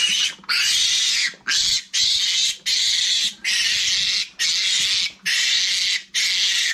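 A week-old Meishan piglet squealing over and over while held up by its hind legs: a string of about nine loud, shrill screams, each under a second, with short breaths between.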